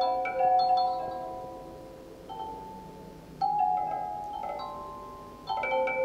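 Computer-generated wind chimes ringing in a data sonification, their strikes driven by real-time wind-speed data. Irregular clusters of struck metallic tones ring out and fade, with a lull about two to three seconds in before the chiming picks up again.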